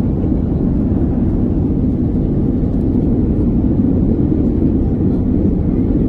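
Steady low rumble inside an airliner cabin as it rolls down the runway after touchdown: engine and wheel noise of the landing rollout, with no clear tones or breaks.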